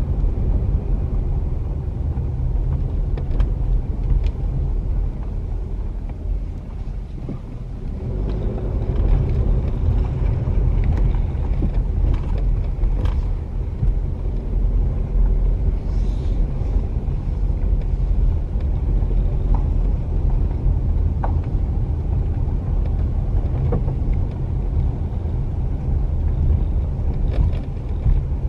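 Steady low rumble of road and engine noise inside a moving car, easing briefly about seven seconds in.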